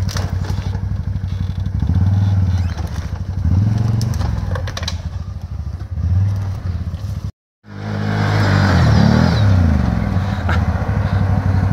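Six-wheeled ATV engine revving in repeated bursts, rising and falling, as it climbs a steep dirt bank, with a few sharp clacks. The sound cuts out briefly about seven seconds in, then the engine revs up and down again.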